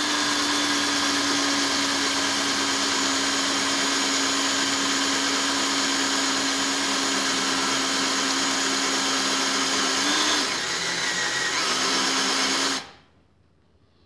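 Cordless drill running steadily as its bit cuts through the head of a copper rivet set in leather, drilling the rivet head off. About ten seconds in the pitch briefly rises, then runs a little lower until the drill stops near the end.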